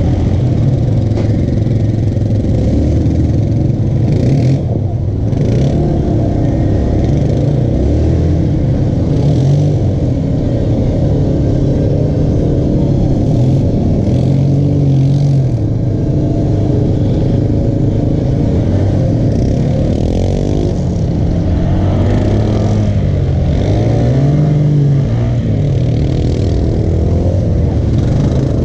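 Polaris Sportsman XP 1000 ATV's twin-cylinder engine idling, with repeated throttle blips that rise and fall every few seconds. Other off-road vehicles' engines rev at times behind it.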